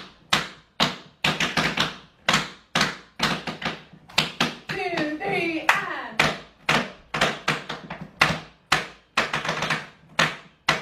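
Two dancers' tap shoes on a wooden board doing a nerve-tap drill on the toe: a sharp strike at the top of each count followed by a quick trembling rattle of taps, repeated over and over. A short burst of voice cuts in about five seconds in.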